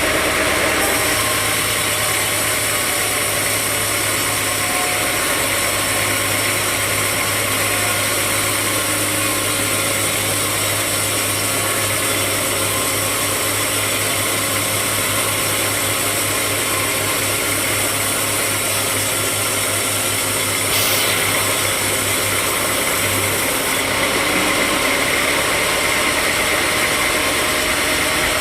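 Sawmill machinery running steadily, a loud even mechanical noise with a low motor hum that stops about 23 seconds in; a brief sharp sound around 21 seconds in.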